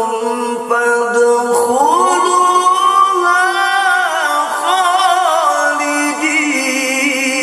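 A solo male qari's voice in melodic Quranic recitation, drawing out long held notes with a rise in pitch about two seconds in and wavering ornamented turns in the second half.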